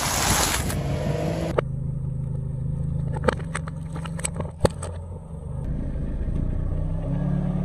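A car tyre crushing popcorn: a loud crunching hiss for about a second and a half that cuts off suddenly. Then the car's engine idles steadily while a tyre squashes a buttermilk carton, with three sharp cracks in the middle of that stretch.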